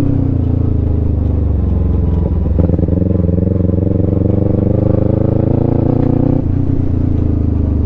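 Kawasaki Ninja 250 FI parallel-twin engine running while riding, a steady engine note that rises a little about two and a half seconds in and eases back down a little past the six-second mark.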